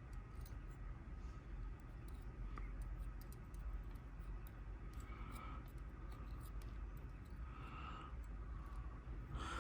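Faint, scattered clicks of steel tweezers and small lock pins being handled while repinning a Kwikset lock cylinder, over a low steady hum.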